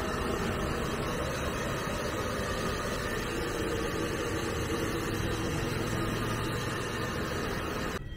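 Handheld hair dryer running steadily, blowing air over a French bulldog's coat to dry it after a bath. The steady blowing stops abruptly near the end.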